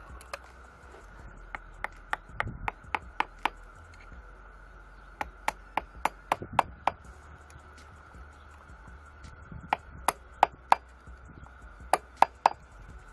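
Sharp metal-on-metal taps of a hammer on a screwdriver used as a drift, knocking round the slotted round nut on a gear of a 6M12P milling machine's feed-gearbox clutch shaft. The taps come in four runs of quick strikes.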